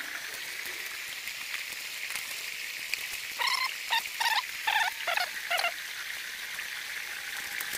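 Shallow creek water running steadily over rocks. Near the middle comes a quick run of about seven short, pitched animal calls, loud over the water.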